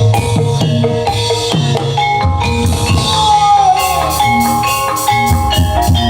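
Reog gamelan accompaniment: drums and tuned mallet percussion (gongs and metallophones) playing a driving rhythm, with a sliding melodic line over the top about three seconds in.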